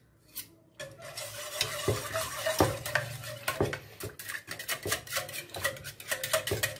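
Wire whisk stirring ghee into a cocoa-and-milk mixture in a metal pot, its wires clicking and scraping against the pot in quick, irregular strokes with a liquid swish. The stirring starts about a second in.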